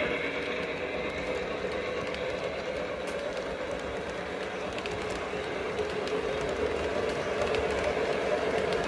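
O-scale model train passenger cars rolling past on a curved track: a steady rumble of wheels on rail, with a few faint clicks, growing slightly louder near the end.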